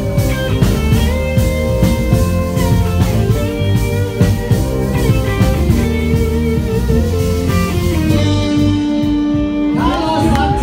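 Live rock band playing: electric guitar and keyboard chords over drums. Near the end the cymbals drop out, leaving a single held note, and a voice comes in.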